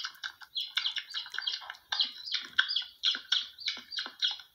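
A quick, unbroken run of short, bird-like chirps and tweets, several a second.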